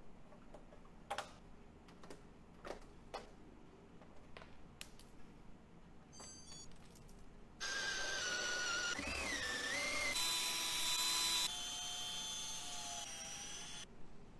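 Faint scattered clicks, then from about halfway a cordless drill spinning a rubber eraser wheel against car paint to strip leftover badge adhesive. Its whine wobbles in pitch, then shifts in steps before stopping just before the end.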